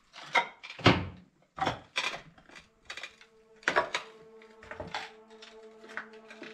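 Footsteps crunching and clattering over broken tile and plaster debris, a string of sharp uneven knocks. About halfway through, a low steady music drone comes in underneath.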